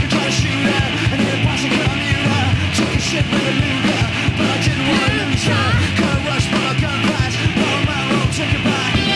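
Loud, dense noise-rock recording: distorted electric guitars and drums keep up a constant, unbroken wall of sound.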